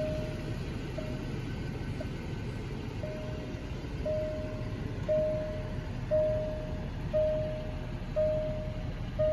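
Car's interior warning chime sounding about once a second, a single mid-pitched tone each time, over a steady low rumble.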